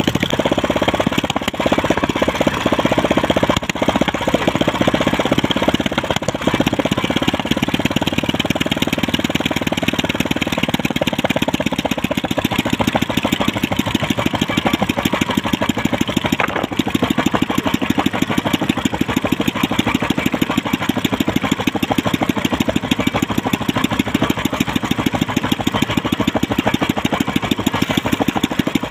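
Engine of a small wooden outrigger fishing boat running steadily, with a fast, even beat.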